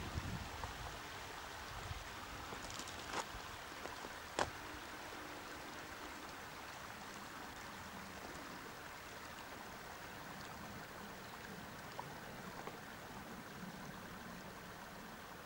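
Steady rush of running water from a glacial meltwater stream, with two sharp clicks about three and four seconds in.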